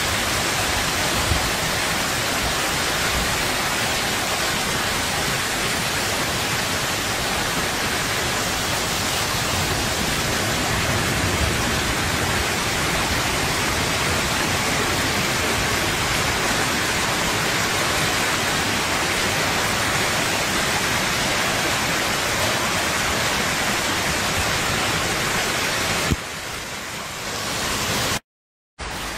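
Heavy rain pouring down, a steady, even hiss without separate hits. A few seconds before the end it drops in level and cuts out for a moment.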